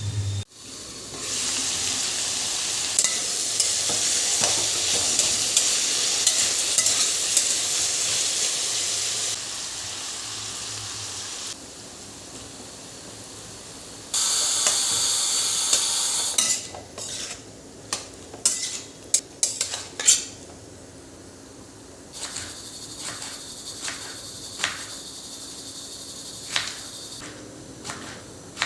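Food sizzling as it fries in a pan, loud for the first ten seconds or so, dropping away and then loud again for a couple of seconds about fourteen seconds in. After that a spoon or spatula clinks and scrapes against the pan repeatedly over a quieter sizzle.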